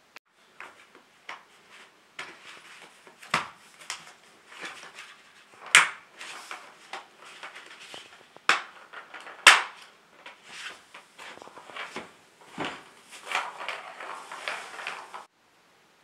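Hard plastic track sections of a cat's circuit ball-track toy knocking and clicking as they are handled and fitted together by hand, with a handful of sharp clacks among softer clattering. The sound cuts off suddenly near the end.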